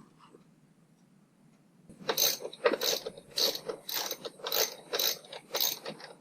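Hand ratchet clicking in repeated strokes, about two a second, as fasteners are loosened; it starts about two seconds in.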